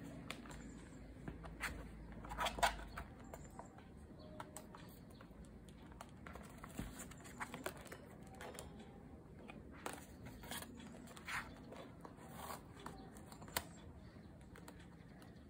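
Plastic photocard sleeves and cards being handled, with faint, irregular crinkling and light clicks. The clicks are a little louder about two and a half seconds in and again near the end.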